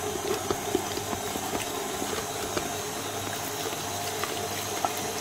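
Stand mixer motor running at a steady speed, with its dough hook kneading bread dough in the bowl and a few faint ticks.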